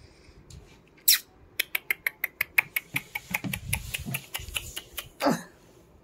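Puppy's claws clicking on a tiled floor as it trots, a quick even run of about five clicks a second. A short sound falling in pitch comes about a second in, and another, lower one comes near the end.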